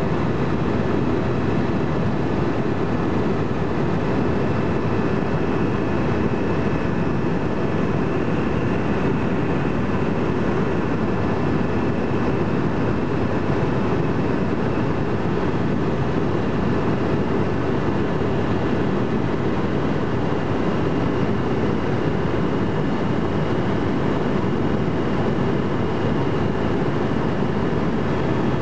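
Helicopter cabin noise in steady cruise flight: a constant low rumble of rotor and engine heard from inside the cabin, with a faint steady whine above it.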